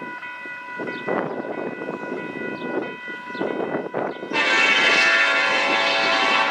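Freight train rumbling along the rails with a steady high ringing over it, then a locomotive horn sounds loudly about four seconds in and holds.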